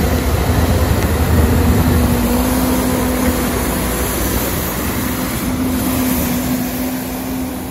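Diesel engine of a backhoe loader running close by as the machine clears heaped hail with its front blade, a steady heavy rumble with a hum in it, the low rumble easing off about halfway through.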